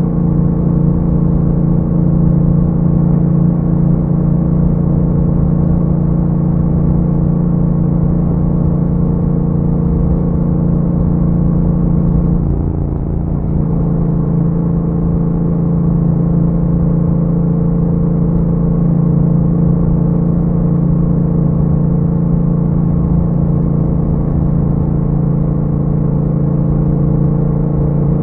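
Yamaha MT-07's 689 cc parallel-twin engine, through an Akrapovic exhaust with a dB killer, running under way at steady revs. About halfway through it eases briefly, then settles back to a steady note.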